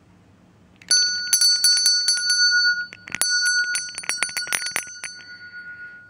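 A small bell rung rapidly in two runs of about two seconds each, starting about a second in, with several clear ringing tones that linger and fade near the end.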